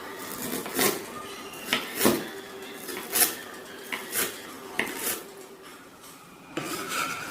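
Utensils clinking and knocking against dishes: a string of about nine separate sharp clinks, roughly one a second.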